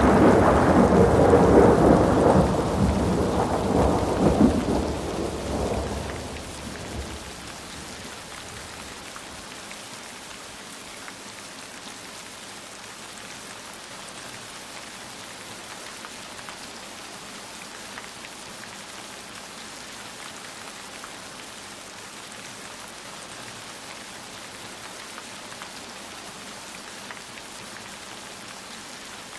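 A roll of thunder over heavy rain, dying away over the first six or seven seconds; after that the downpour goes on alone as a steady hiss.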